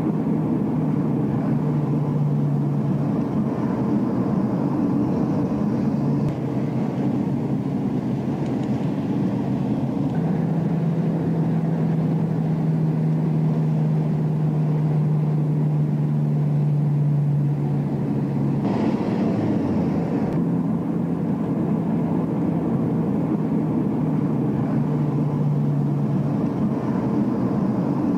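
Car engine and road noise heard from inside the cabin: a steady drone with an engine hum that grows stronger and fades as the car winds along, and a brief louder hiss about two-thirds of the way through.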